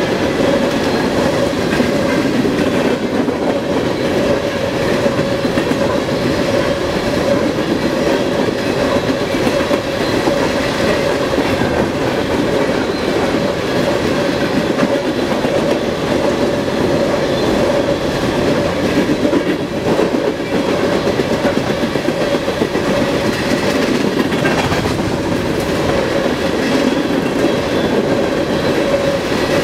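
A long train's cars rolling past on the track: a loud, steady noise of steel wheels running on rail.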